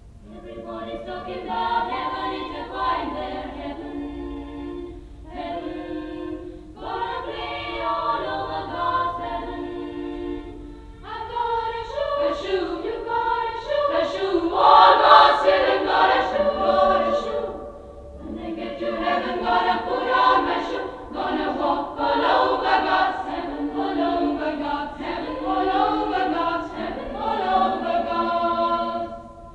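A choir of girls' voices singing unaccompanied, in long phrases with short breaths between them. The recording is muffled, with no treble.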